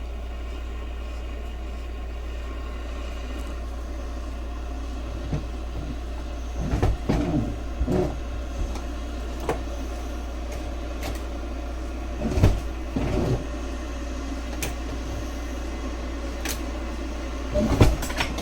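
Vycoda electric gooseneck kettle heating water towards the boil: a steady hiss over a low hum, with a few irregular pops and knocks as the water starts to boil.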